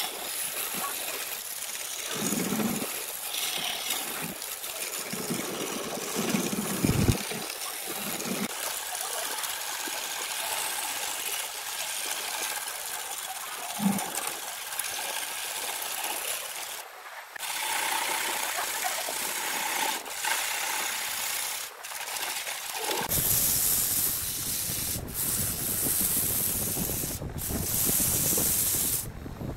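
Wood lathe spinning a glued-up segmented wooden blank while a turning tool shaves it, a steady hiss of cutting with shavings flying off. About two-thirds of the way through it changes to sandpaper held by hand against the spinning piece, a louder, fuller hiss.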